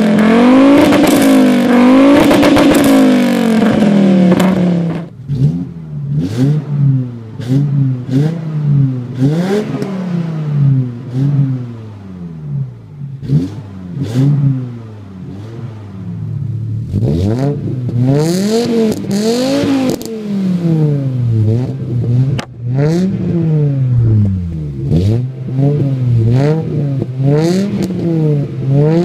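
Volvo 850 five-cylinder engines revved repeatedly while parked, heard at the tailpipe. For about five seconds one car with a 3-inch exhaust is revved hard and fast. After that a Volvo 850 GLT is blipped again and again, each rev rising and falling, first through its old stock exhaust and later through a new 2.5-inch straight exhaust with a muffler.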